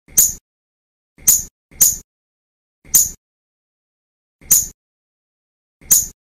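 A shrew giving six short, sharp squeaks at irregular intervals, with dead silence between them.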